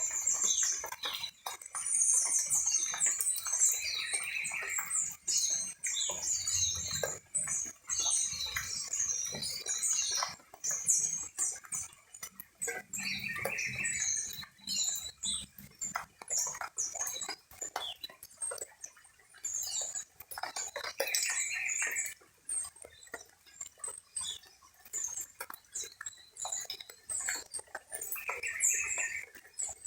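Small birds chirping and twittering continuously, with a louder, lower call coming back about every eight seconds.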